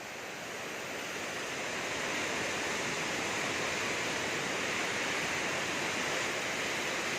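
Steady rushing of fast-flowing floodwater, growing louder over the first two seconds and then holding even.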